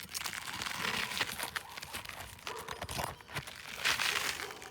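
Asphalt shingles crunching and scraping as a flat roof-snake nail remover is worked under them to pry out roofing nails: an irregular run of scrapes and crackles.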